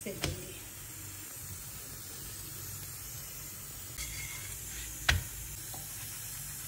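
Aloo paratha cooking in a hot frying pan, giving a steady soft sizzle. There is a light knock just after the start and a sharper knock about five seconds in.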